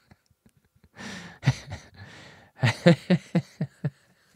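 A man laughing: a breathy chuckle about a second in, then a run of short laughs, about four a second, near the end.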